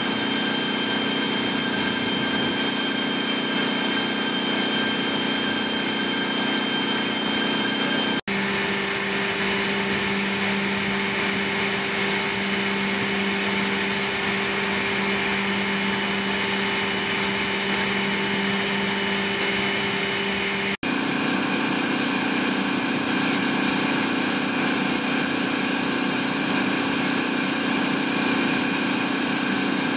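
Steady turbine whine and drone of an MV-22 Osprey, several constant tones held over a dense rushing noise. It drops out for an instant about a third of the way in and again about two-thirds in, and the tones shift slightly each time.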